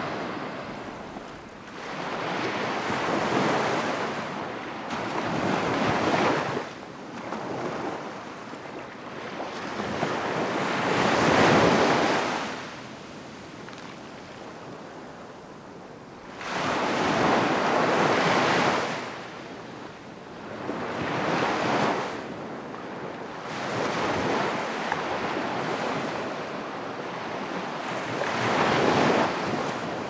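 Gentle surf washing up onto a sandy beach, the sea swelling and fading every few seconds as each wave comes in and draws back. The loudest surges come just before the middle and again a little after it.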